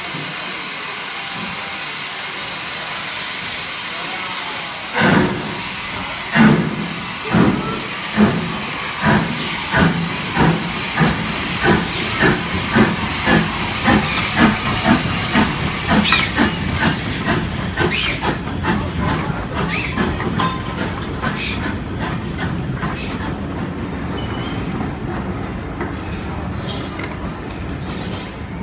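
Saddle-tank steam locomotive starting away with its train. A steady hiss of steam, then about five seconds in sharp exhaust chuffs begin, about one a second and quickening until they run together, giving way near the end to the coaches rolling past.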